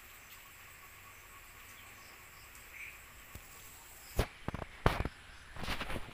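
Quiet room background with a faint short chirp about three seconds in, then from about four seconds in a series of sharp knocks and clicks, the loudest near five seconds, like a handheld phone being handled and shifted.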